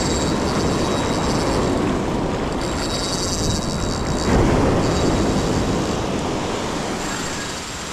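Ocean surf washing against the rocks with wind buffeting the microphone, a wave surging louder about four seconds in.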